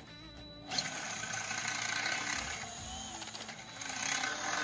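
Craftsman cordless drill running steadily as it bores a hole into a metal vehicle bumper, starting about a second in.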